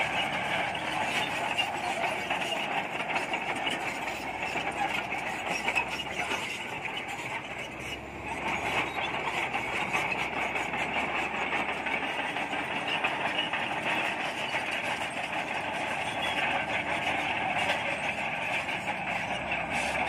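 Shantui SD22 crawler bulldozer's diesel engine running steadily under load while it pushes earth with its blade, its steel tracks rattling, with a brief dip about eight seconds in.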